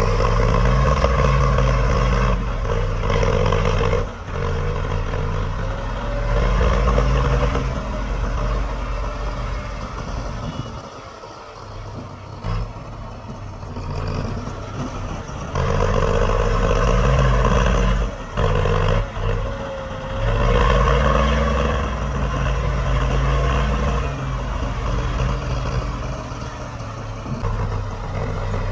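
Diesel engine of heavy earthmoving equipment working under load, revving up and easing back in repeated surges every several seconds, with a few sharp knocks.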